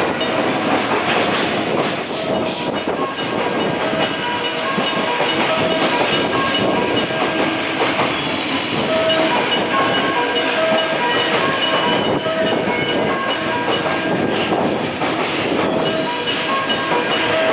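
Container freight wagons running past at speed: a loud, steady rush of wheel and rail noise, with brief squealing wheel tones now and then.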